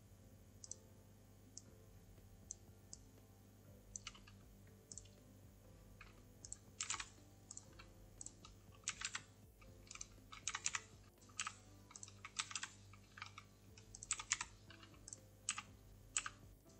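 Faint computer keyboard keypresses and mouse clicks, sparse and irregular for the first few seconds, then coming more often in short clusters.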